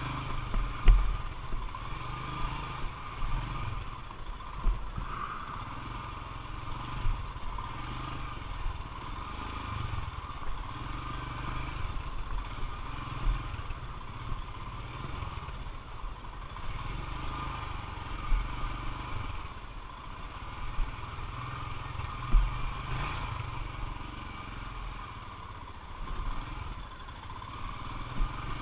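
Royal Enfield Himalayan's single-cylinder engine running at low revs on a rocky downhill trail, with frequent sharp knocks and rattles as the bike rolls over loose stones.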